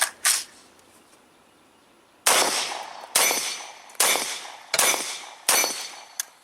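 Five suppressed gunshots, evenly paced semi-automatic fire about 0.8 s apart, each a sharp crack with a short fading ring, from a firearm fitted with a Pilum M modular suppressor. A couple of small clicks come before and after the string.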